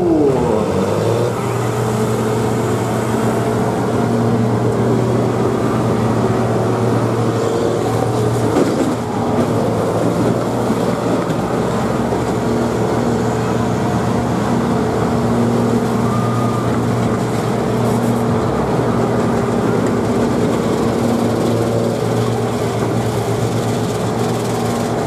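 Several combine harvesters' engines running together in a demolition derby, a steady loud drone.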